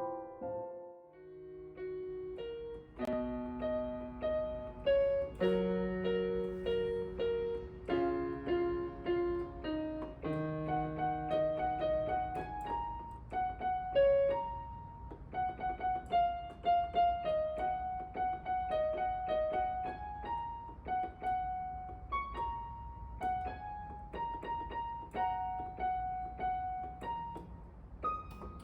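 Background piano music: a gentle melody of single notes with chords beneath, with a brief lull about a second in.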